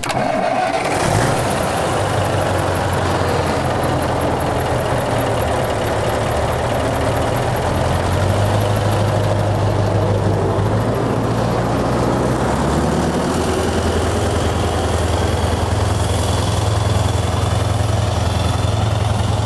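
Scania 14-litre V8 turbo diesel in a home-built Volvo tractor starting and catching within the first second, then running steadily. Its pitch steps up and climbs a little in the second half as the tractor drives off.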